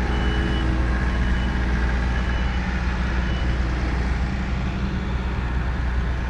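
Tractor engine running steadily with a deep, even drone, along with faint intermittent high beeping.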